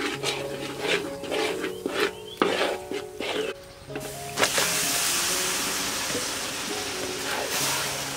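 Metal spatula scraping and knocking in a steel wok as a bubbling sauce paste is stirred, then a loud sizzle starts suddenly about four and a half seconds in as raw meat is tipped into the hot oil, slowly easing off. Background music plays throughout.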